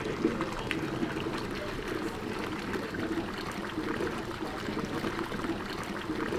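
Water lapping and trickling against boat hulls at a dock, steady throughout with small splashy ticks.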